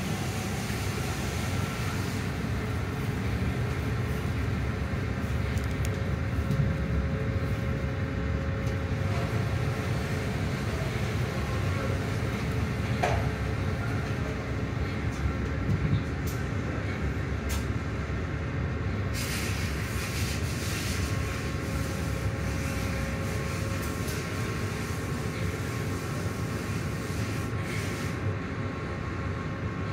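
Automatic car-wash tunnel machinery running: a steady low rumble with a faint machine hum, heard from inside a car's cabin. A hiss of water spray joins about two-thirds of the way in.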